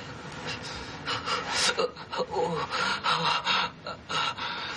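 A man gasping and breathing raggedly, a run of rasping breaths from about a second in, with bedclothes rustling as he moves in bed.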